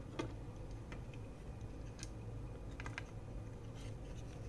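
A few light, scattered clicks and taps of small parts being handled as a graphics card's cooler is fitted back onto the board, over a low, steady hum.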